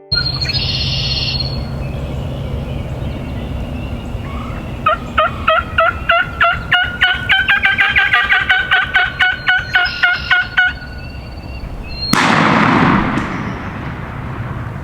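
Wild turkey yelping: a fast run of about two dozen yelps over some six seconds. A brief loud rush of wind on the microphone follows near the end.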